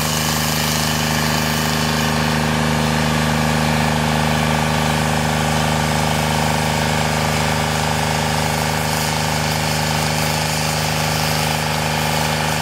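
Carlton SP 7015 self-propelled stump grinder's engine running steadily while the machine drives, an even, unbroken mechanical drone.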